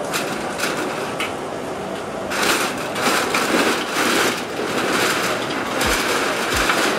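Excavator bucket crushing a corrugated-metal and wood shack: sheet metal crumpling, scraping and clattering, a continuous jumble of bangs that grows louder about two seconds in.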